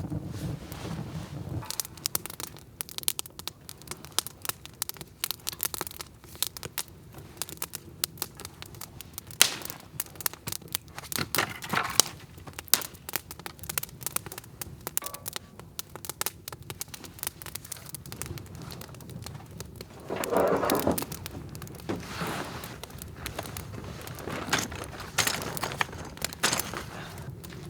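Wood campfire crackling, with irregular sharp pops throughout and a louder rustling burst about twenty seconds in.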